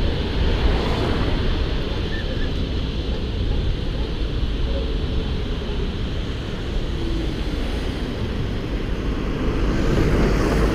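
A moving Inekon T8M-700IT tram's running noise, heard from a camera on the outside of its body, as a steady low rumble with wind buffeting the microphone. It grows briefly louder near the end.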